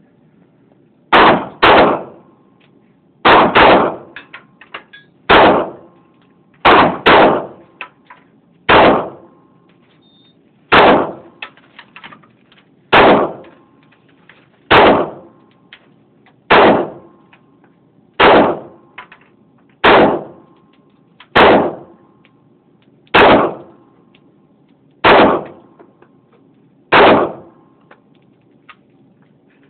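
A 9mm handgun fired about eighteen times, one shot every one to two seconds with a few quick double shots, each a sharp loud report with a short ringing tail. Light clicks sound between the shots.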